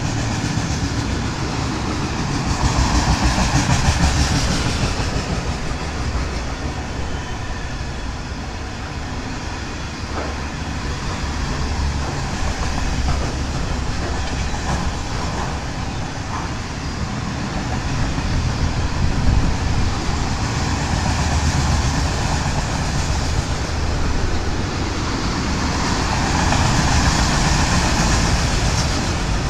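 Freight train of autorack cars rolling past: a continuous rumble and rattle of wheels on rails. It swells louder around three to four seconds in and again near the end.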